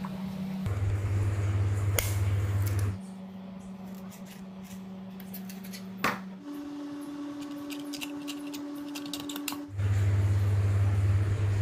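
Electric motors of a homemade miniature metal motorcycle running with a steady whirring hum that jumps between a few pitches in sudden steps, lower and louder for stretches. There is a sharp click about six seconds in, followed by faint rapid ticking.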